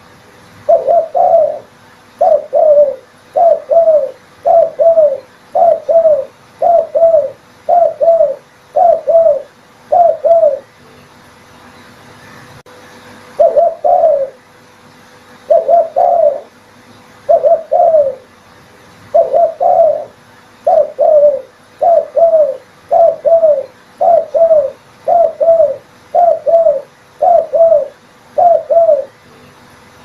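Spotted dove cooing: a long run of short two-note coos, about one a second, with a pause of a few seconds about a third of the way through.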